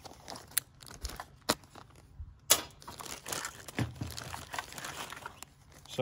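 Clear plastic packaging bag crinkling and rustling as it is handled and opened, with a few sharp clicks from the hard plastic parts inside.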